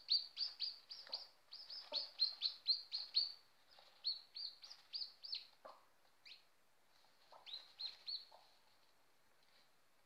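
Newly hatched chicks peeping: short, high, falling peeps, about four a second for the first three seconds, then sparser and dying away near the end. A few soft low clucks from the mother hen are mixed in.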